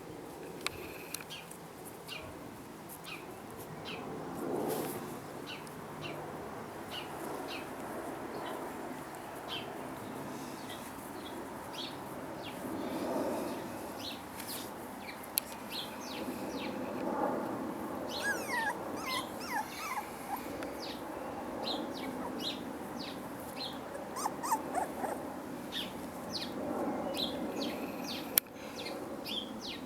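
Young puppies whimpering and giving short high squeaks again and again, with thin whines that rise and fall in pitch in the second half.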